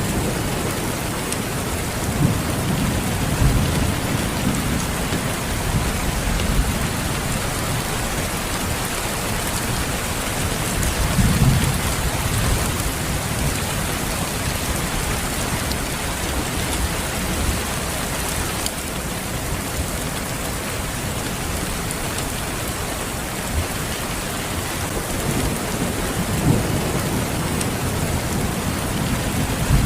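Steady, dense rain falling, with low rumbles of distant thunder swelling up several times.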